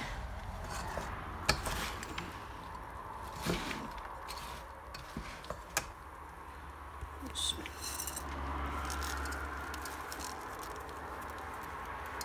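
A few sharp clinks and knocks of kitchenware, a wooden spoon and a china plate against a non-stick pan, spaced a second or two apart, as seeds are tipped onto syrup-soaked boondi and stirred in. A low steady hum lies under them.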